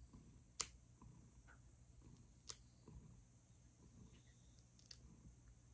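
Pet nail clippers snipping through a cat's claws: three sharp clicks about two seconds apart, the last a quick double.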